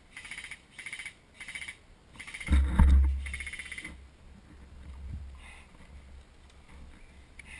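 A small animal's short trilling calls repeated about twice a second, stopping about four seconds in. A loud low rumble on the microphone comes about two and a half seconds in.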